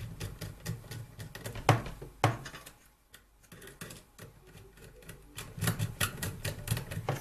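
Irregular light clicks and taps of hands and a screwdriver working at a switching power supply's wire terminals, with a few sharper knocks about a second and a half in, just after two seconds, and at the end.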